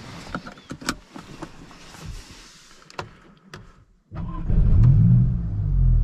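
Seatbelt being drawn across and clicked into its buckle, with rustling and light clicks. About four seconds in, the Maserati MC20 Cielo's twin-turbo 3.0-litre V6 Nettuno engine starts with a sudden loud catch, flares up in revs and then settles back toward idle.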